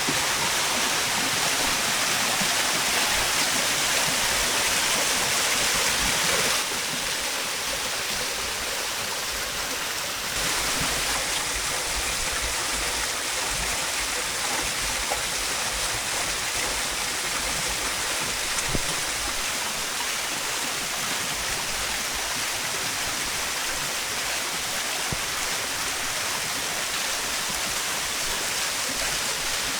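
Rushing water, a steady hiss of flowing or falling water. It drops a little in level about six and a half seconds in and shifts again about ten seconds in.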